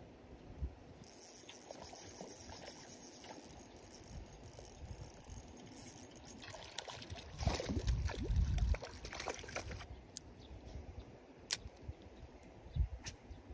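Water trickling and splashing with small clicks, loudest for about a second a little past the middle.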